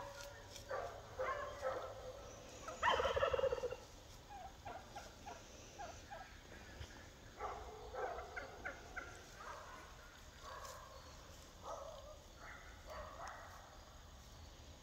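A series of short animal calls at irregular intervals, the loudest a rapid rattling call about three seconds in.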